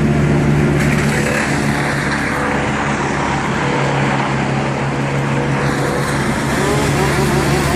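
Heavy machinery engine running steadily at a constant speed, a low hum with a noisy rush over it.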